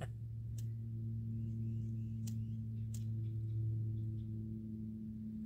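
A steady low hum with a couple of overtones, with a few faint sharp clicks.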